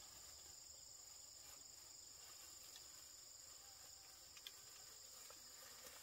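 Near silence with a faint steady high-pitched insect chirring in the background, and a few faint light clicks around the middle.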